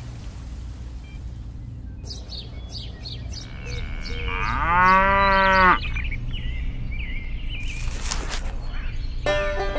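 Rain hiss dies away, then birds chirp and a cow gives one long moo about halfway through, the loudest sound here. Music with plucked notes starts near the end.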